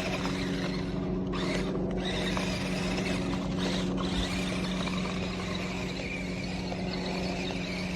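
Small electric motor and gearbox of a toy RC monster truck running at a steady speed, a constant whine with a rushing noise over it.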